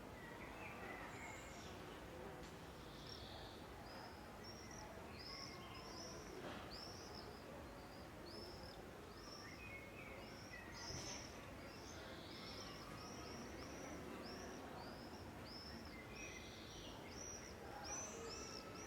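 Faint birdsong over a steady background hiss: one bird repeats a short, high, arched note about twice a second, with scattered chirps from other birds.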